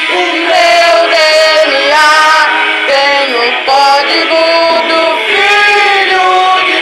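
A man singing a Portuguese gospel song over a recorded backing track played through a portable speaker, with long held, gliding notes.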